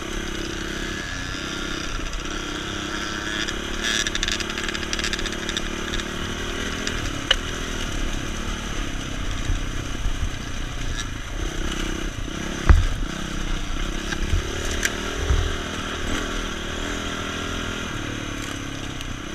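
Dirt bike engine running steadily while riding a rough, rocky trail, with knocks and rattles from the bike jolting over stones; the loudest knock comes about thirteen seconds in, with another a couple of seconds later.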